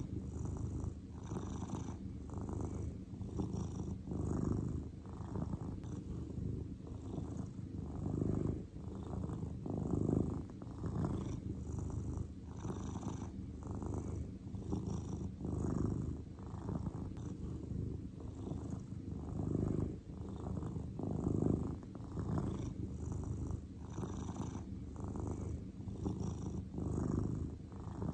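Grey long-haired cat purring steadily and contentedly, the purr swelling and easing in an even rhythm with its breaths.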